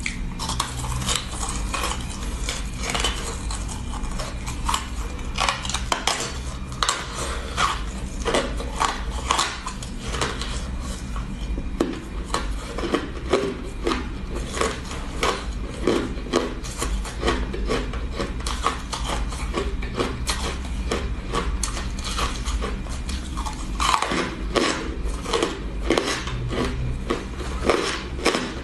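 Frosted ice chunks crunched and chewed in the mouth, a fast, irregular run of crisp cracks and crunches, over a low steady hum.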